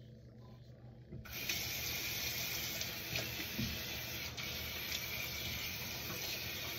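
Water tap turned on about a second in and running steadily into a sink.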